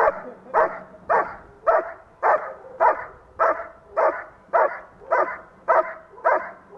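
German Shepherd barking steadily and rhythmically at a helper in the blind, nearly two evenly spaced barks a second: the bark-and-hold of an IPO protection routine, the dog holding the helper in place by barking.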